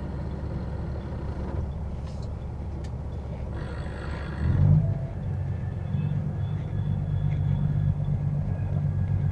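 Truck engine and road noise heard from inside the cab while driving on the highway: a steady low rumble. About four and a half seconds in there is a short rush of noise, after which the engine's hum grows louder and stays steady.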